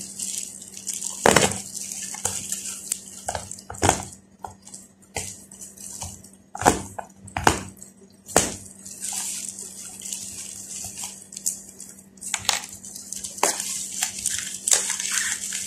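Plastic-bag parcel wrapping crinkling and crackling as it is picked at and pulled open by hand, in irregular sharp crackles with softer rustling between them, over a faint steady low hum.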